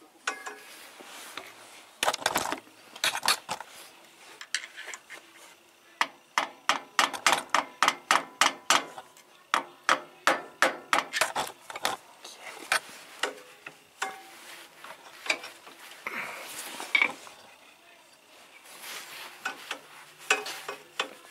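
Hand tools clinking and tapping on metal engine parts: scattered sharp metallic clicks, with a quick, fairly regular run of taps, about three or four a second, from about a quarter of the way in to just past halfway.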